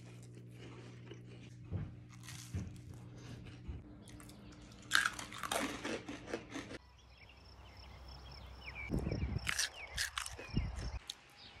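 Close-up biting and crunchy chewing of peanut butter toast, sesame sticks and raw snap peas, eaten in turn. It comes in short bursts of crunching, once midway and again near the end, over a low steady hum.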